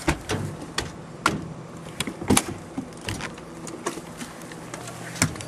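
Irregular sharp clicks and knocks as the entry door of an RV trailer is handled and pulled open, over a steady low hum.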